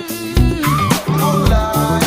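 Instrumental Brazilian funk music: bass and drums keep a steady beat, about one or two hits a second, while a sliding lead melody plays above.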